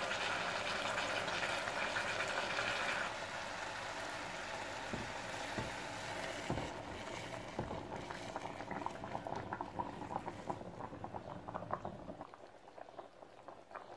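Steamed chicken sizzling in a hot pan, then melon seed (wrewre) soup going in over it. The loud sizzle eases about three seconds in and gives way to quieter bubbling with irregular pops and crackles.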